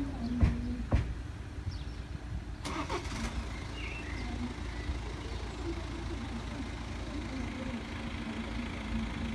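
Car engines idling at a level crossing with a steady low rumble. A few sharp clicks and knocks come in the first three seconds.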